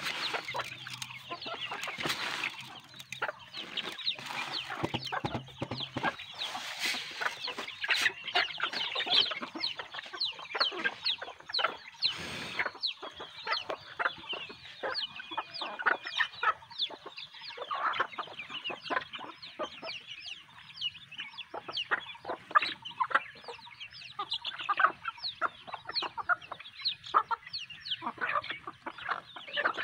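A flock of desi chickens clucking and calling over one another in a dense, continuous chorus of short calls.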